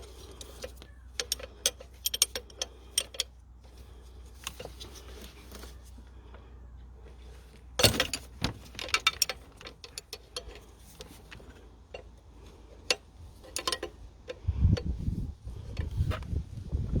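Metal spanners clicking and clinking against the injector fittings on a Ford Mondeo 1.8 TDCi diesel engine as they are undone, with a burst of clinks about eight seconds in and a few low thumps near the end.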